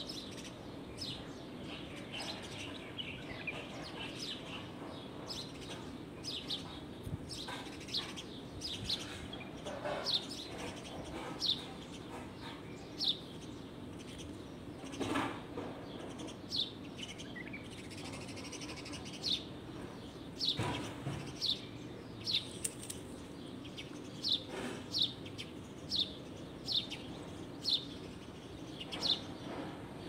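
Forest songbirds chirping: short, high, downward-sliding chirps repeated about once a second, mixed with a few other calls, over a steady low background noise.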